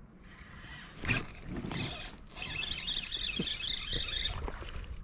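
Fishing reel whirring as line is wound in on the retrieve, after a sudden sharp noise about a second in.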